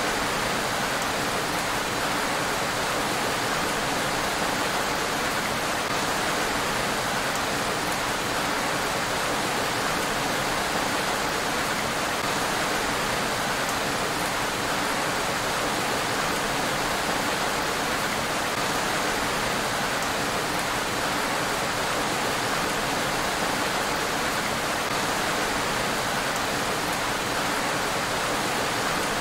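Rain falling steadily on a road: an even, unbroken hiss.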